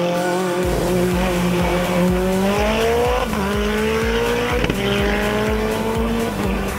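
Lancia Delta Evo hillclimb car accelerating hard out of a hairpin: the engine note rises, drops with an upshift about three seconds in, rises again, and drops with a second upshift near five seconds before climbing once more.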